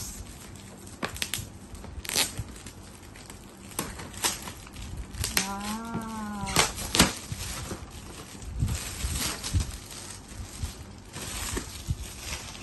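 Shiny metallic gift wrap crinkling and tearing in irregular crackles as a present is unwrapped by hand. A short voiced hum rises and falls about halfway through.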